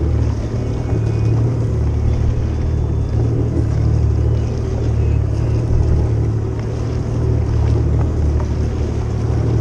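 Jet ski engine idling, a steady low rumble, with the sea sloshing around the hull.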